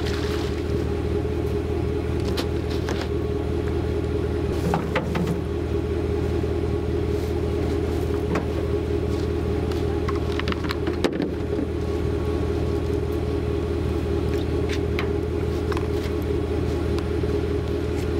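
An engine idling with a steady low hum that does not change, with a few light knocks and clicks on top.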